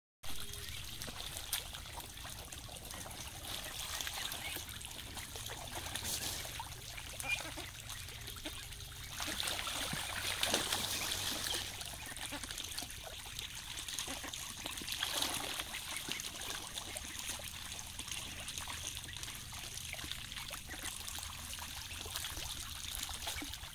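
Water splashing and trickling steadily as a flock of domestic ducks bathes in a shallow, flowing muddy stream. The splashing grows louder for a while about ten seconds in.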